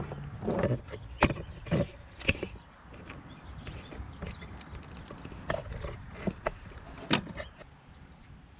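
Hand tools working a small bolt out with a 7 mm socket: irregular sharp clicks and metal knocks, a few a second, thinning out toward the end.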